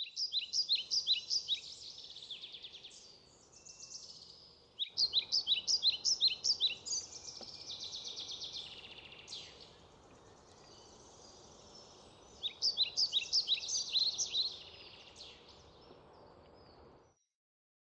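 A songbird singing three bouts of rapid, repeated high chirping notes over a faint steady outdoor hiss; all sound cuts off suddenly near the end.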